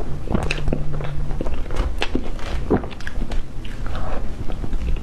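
Close-miked eating of soft cream cake: wet mouth clicks and smacking while chewing forkfuls of cream and sponge, a string of short sharp clicks through the whole stretch.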